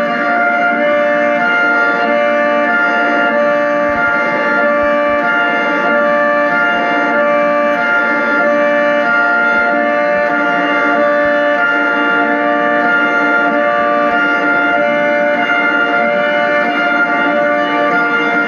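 Music-like sustained tones: several steady notes sound together and shift in steps every second or so, with no rising and falling siren wail.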